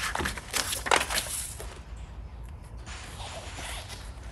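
Paper backing liner being peeled off vinyl wrap film and crumpled, a run of rustling crackles that is loudest about a second in. Quieter handling follows.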